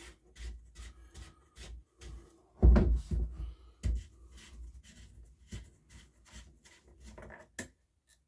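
Handling noises from checking the oil on a Makita BHX2500 leaf blower's four-stroke engine: scattered light clicks and rubs of the dipstick and plastic housing, with a heavier knock about three seconds in and another about a second later.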